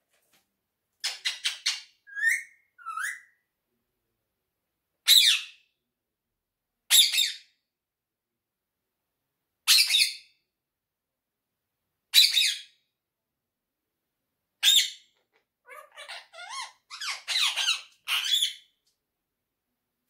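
Indian ringneck parakeet screeching: a quick burst of harsh calls about a second in, then single loud screeches every two to three seconds, and a run of quicker, more varied calls near the end.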